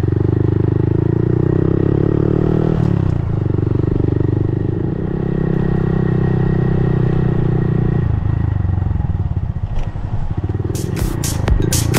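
Monkey bike's small single-cylinder engine running steadily under way. Its note breaks briefly about three seconds in and drops back about eight seconds in. About a second before the end, electronic music with a hard beat cuts in.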